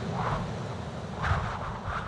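Strong gusting wind: a low, steady rumble with whooshing gusts that swell twice, the second and stronger just past a second in.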